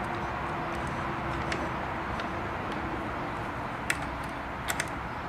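Three light metal clicks from a small hex bit working the set screws of the hook drive gear in a Singer Stylist 522: one about four seconds in, then two close together.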